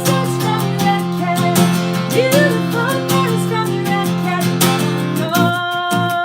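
Live song performance: an acoustic guitar strummed in a steady rhythm under a wavering melody line. About five seconds in, a long held note comes in over the strumming.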